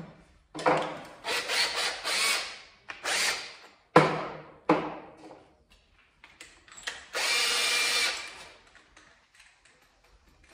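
Power drill running in several short bursts, then one steady run of about a second.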